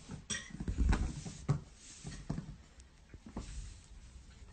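A kitten scampering and batting about on a laminate floor: a few soft knocks and scuffs over a low rumble, busiest in the first couple of seconds.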